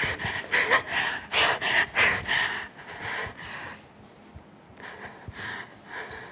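A woman's acted sobbing, loud gasping breaths in quick succession that die down about three seconds in.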